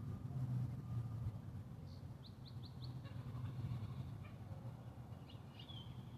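Birds chirping over a low steady rumble: a quick run of four high chirps about two seconds in, then more chirps and a short whistle near the end.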